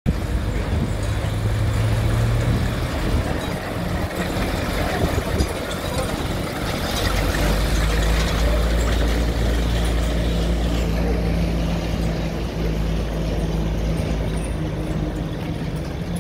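White half-track's straight-six gasoline engine running as the vehicle drives slowly off: a steady low engine rumble whose note rises about seven seconds in.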